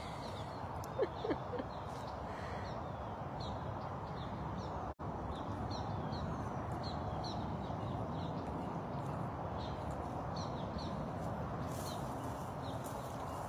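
Outdoor ambience: small birds chirping over and over in short, high, falling notes over a steady background hiss. Two short low calls about a second in are the loudest sounds. The sound cuts out for an instant about five seconds in.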